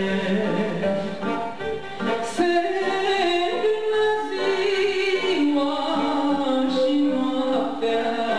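Romanian folk song performed live: a woman singing into a microphone with violin accompaniment.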